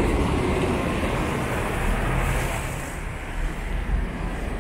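Road traffic on a wet city street: engines and tyre noise from passing cars, with a double-decker bus close by at first and a car's tyre hiss swelling about two seconds in.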